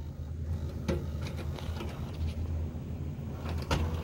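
Sharp VC-H993US VCR's tape mechanism working, with sharp clicks about a second in and again near the end, over a steady low hum.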